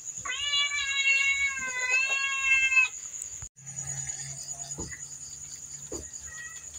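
A pet cat giving one long, drawn-out meow lasting nearly three seconds.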